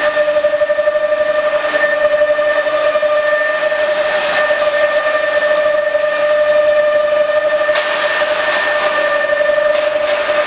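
CNC router machinery running with a steady high-pitched whine, one pitch with overtones, under a hiss that swells now and then, most strongly about eight seconds in.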